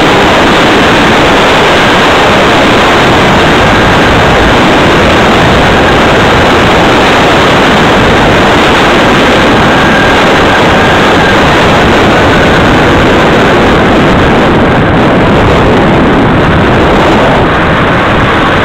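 Loud, steady wind rush on the microphone of a camera moving along a road, an even roar with no distinct events that covers any traffic sound.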